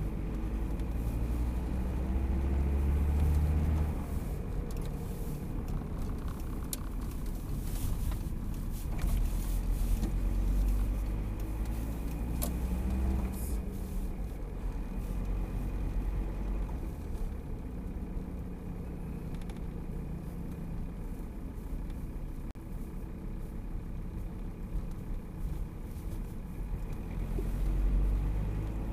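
A car driving slowly, heard from inside its cabin: low engine hum and road noise that swell and ease several times as the car speeds up and slows, with a few light clicks and rattles.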